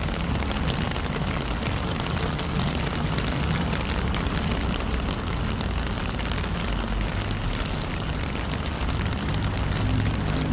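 Rain falling steadily, with fine patter of drops over a constant low rumble.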